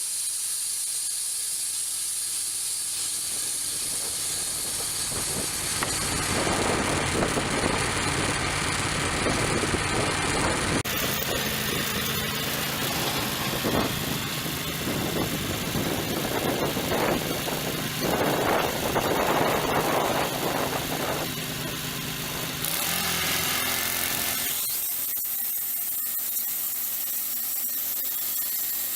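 Band sawmill running, with its engine and the blade noise of sawing. It grows louder about six seconds in and drops to a quieter hum near the end.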